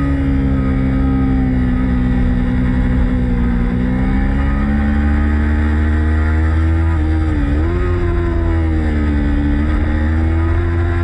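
Racing motorcycle engine running under load at fairly steady revs. The pitch sags slowly and climbs again, with a quick dip and recovery about seven and a half seconds in, like a gear change. A heavy low rumble runs underneath.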